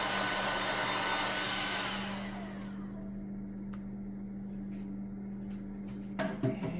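Handheld heat gun blowing steadily as it dries wet watercolour paint, switched off about two seconds in. A steady low hum remains, with a few light knocks near the end.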